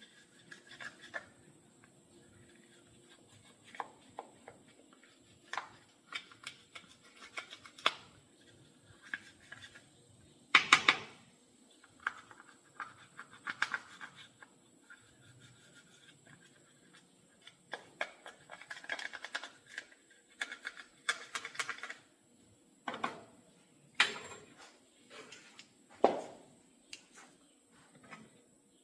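Hand tools scraping, clicking and knocking on a small Stihl chainsaw with its chain off, likely clearing out caked dirt: short scattered scrapes and taps with quiet gaps between, the loudest cluster about ten seconds in.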